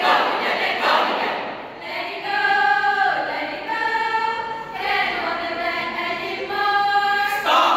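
A choral speaking group's voices chanting together, then singing a short melody in unison in held notes over several phrases, starting about two seconds in.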